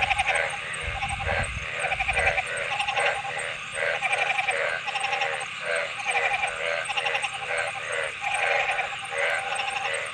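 Frogs calling: a pulsed, rattling croak repeated about once a second, the calls overlapping and sometimes following closely one after another. A low rumble sits under the first two seconds.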